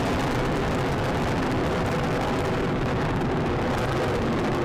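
Falcon 9 first stage's nine Merlin engines firing as the rocket climbs away, a steady dense roar with no breaks. The high hiss thins out from about halfway through as the rocket gains distance.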